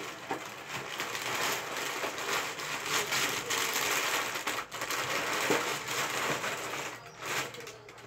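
Dry Cap'n Crunch cereal and its plastic bag liner being handled: a continuous crinkling, crackly rustle that eases off near the end.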